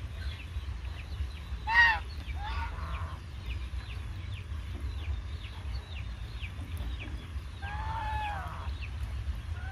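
Domestic geese honking: a loud honk about two seconds in, another just after, and a longer call near the end, over a steady low hum.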